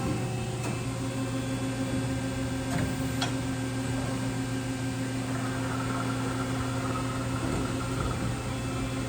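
Steady low machine hum with a few faint clicks; a higher whine joins about five seconds in and fades out near the end.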